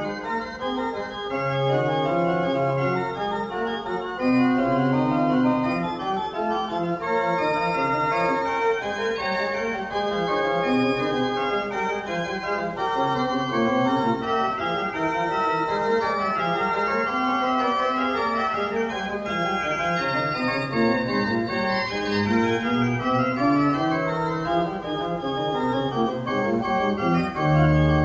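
Carlo Bossi pipe organ (1805) playing a busy passage of several lines moving at once, with a bass line climbing and falling beneath. A strong low bass note sounds near the end.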